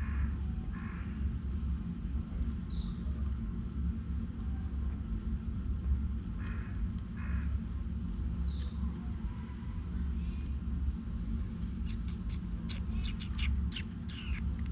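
A bird calling with short, high, falling chirps twice, over a steady low rumble. A quick run of sharp clicks comes near the end.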